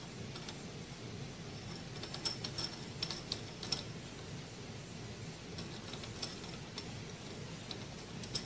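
Light metallic clicks and ticks from small tools and machine parts being handled and adjusted, in scattered clusters about two seconds in and again in the second half, over a steady low workshop machine hum.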